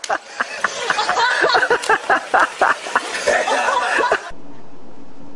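A person laughing hard in quick repeated bursts. About four seconds in it cuts off suddenly to a steady low hum.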